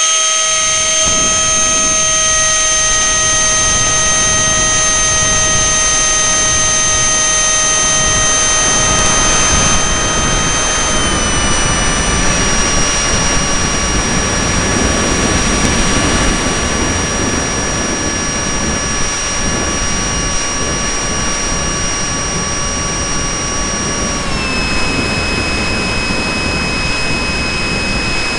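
Electric motor and propeller of a hand-launched radio-controlled model airplane in flight, a steady high whine over wind rush. The pitch drops a little twice as the throttle is eased back.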